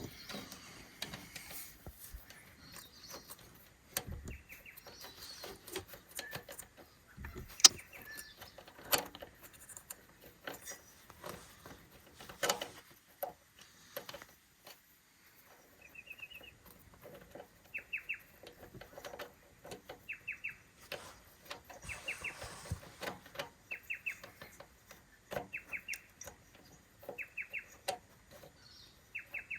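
Scattered sharp clicks and knocks of tools at work on the excavator's injector pump. From about halfway, a bird repeats a short high chirping trill roughly every two seconds.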